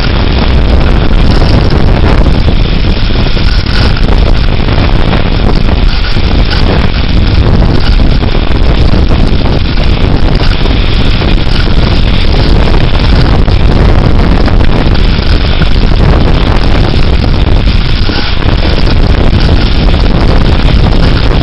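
Severe thunderstorm winds blowing hard and buffeting the microphone: a loud, continuous rushing roar with heavy low-end rumble and no let-up.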